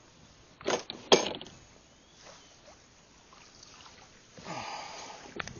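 Two sharp, loud impacts about a second in, then about a second of water sloshing near the end as a giant snakehead is scooped in a landing net against the side of a small boat.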